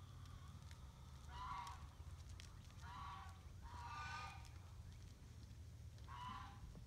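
A bird honking: four short calls a second or two apart, the third the loudest, over a faint steady low rumble.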